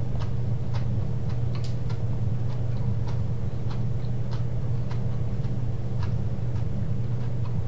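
A person chewing roasted asparagus, with faint irregular clicks scattered through, over a steady low hum.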